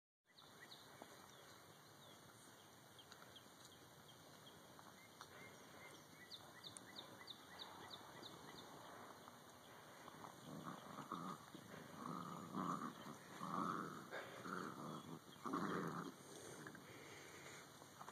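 Puppies growling while tugging on a rope toy in play. It is faint at first, then a string of short growls comes in the second half, louder toward the end.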